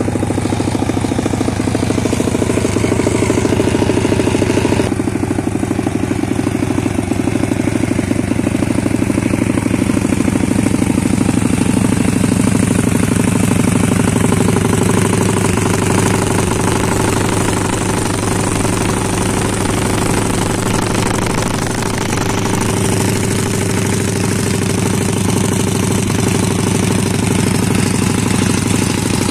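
A DemonX pit bike's YX140 single-cylinder four-stroke engine, fitted with a Z40 cam, idles steadily through its aftermarket exhaust.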